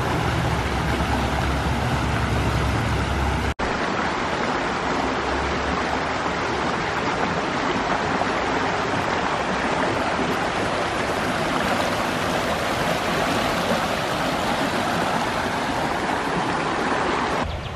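Shallow creek water rushing steadily over rocks and riffles, a loud continuous wash, with a brief cut-out about three and a half seconds in.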